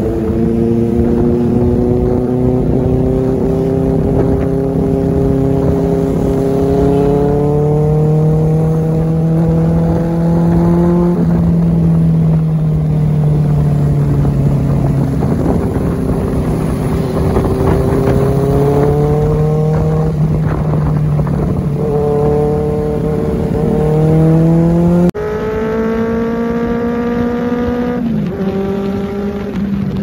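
Benelli TNT 600i inline-four with an IXIL aftermarket exhaust, ridden and accelerating through the gears: the engine note climbs steadily, then drops sharply at each upshift, several times over.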